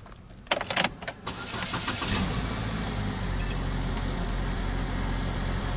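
Keys rattle and click in the ignition, then about two seconds in the Buick's 2.4-litre eAssist four-cylinder engine starts and settles into a steady idle, running with a freshly fitted serpentine belt.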